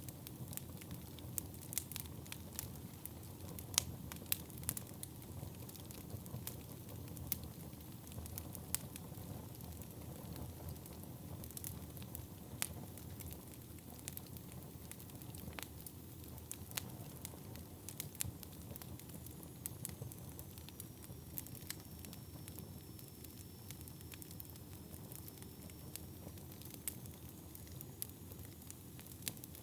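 Wood fire burning in a fireplace: a steady low rumble of flames with frequent irregular sharp crackles and pops from the burning wood.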